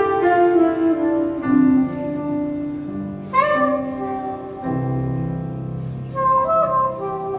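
Live jazz jam: a saxophone playing long held notes over piano chords, with a fresh chord struck about three seconds in.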